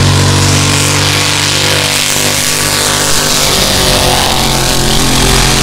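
World's fastest backhoe, a drag-racing JCB, running its engine loud. Around the middle the steady drone gives way to a sweeping rush as the machine goes by, and the steady drone returns near the end.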